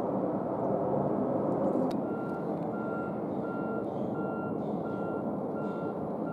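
Steady rumble of jet engines across an airport ramp. From about two seconds in, a vehicle's reversing alarm beeps evenly about every 0.7 seconds.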